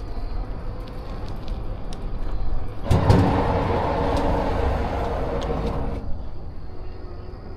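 Road vehicle noise: a steady low rumble, joined about three seconds in by a louder rushing noise that stops abruptly about three seconds later.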